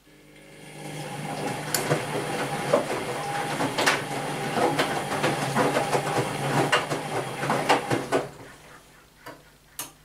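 Whirlpool Primo 1406 UM front-loading washing machine turning its drum during a rinse: the motor starts up and runs with a steady hum for about eight seconds while water sloshes and wet laundry tumbles with many knocks and splashes. The drum then stops, and two last knocks follow near the end.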